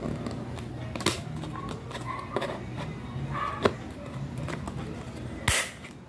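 Hard plastic parts of a toy kitchen set clicking and knocking as they are handled: a few sharp taps spread out, the loudest near the end.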